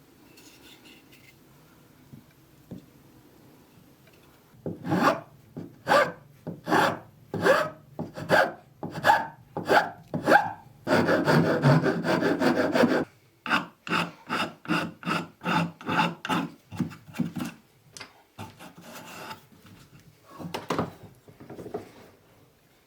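Back-and-forth rasping strokes of a hand tool, starting about four and a half seconds in at roughly one stroke a second, with a couple of seconds of continuous rubbing in the middle, then quicker strokes that grow fainter near the end.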